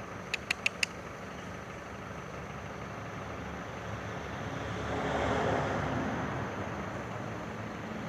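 Motor vehicle and road noise that swells to its loudest about five to six seconds in, with four quick, high ticks under a second in.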